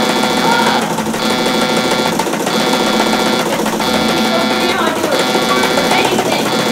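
Electronic alarm buzzing loudly in regular pulses, about one every second and a quarter, set off as the homemade clone machine starts up.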